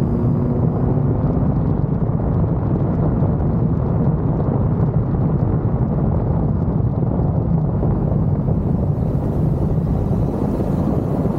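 Kawasaki Z900's inline-four engine running steadily under way, with wind rushing over the microphone.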